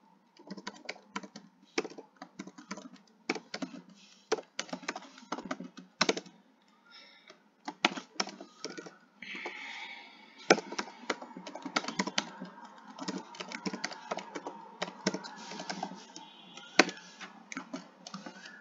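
Typing on a computer keyboard: irregular runs of keystroke clicks with short pauses between words.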